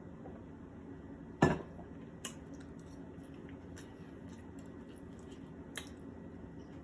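Eating utensil clicking against a dish a few times, the first click the loudest, over a faint steady room hum.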